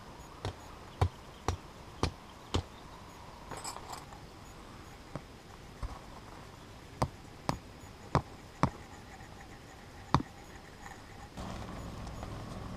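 Metal tent stake being struck into the ground, about a dozen sharp knocks, often in pairs about half a second apart, with pauses between runs. Near the end a steadier rustling noise takes over.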